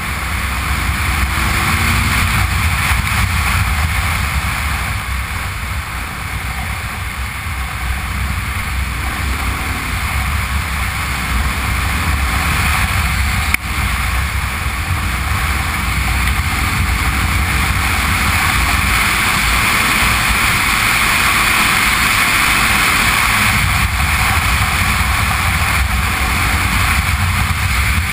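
Honda Transalp V-twin motorcycle riding along a gravel road: the engine running under way beneath heavy wind rush on the camera microphone and the hiss of tyres on loose gravel. A single sharp knock about halfway through.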